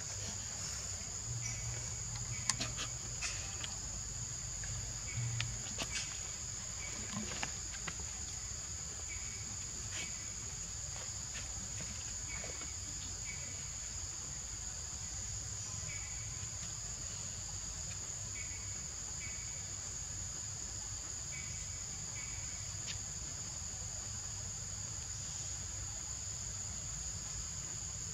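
Insects shrilling steadily on one high pitch, with a few faint clicks in the first several seconds.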